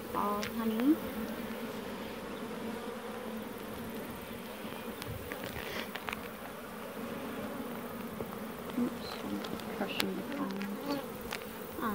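Honeybees from an opened hive buzzing in a steady massed hum, with a louder rising buzz about a second in. A few light clicks sound over it, one sharp click near the end.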